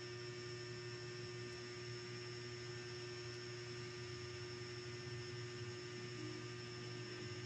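Steady electrical hum made of several constant tones, unchanging throughout.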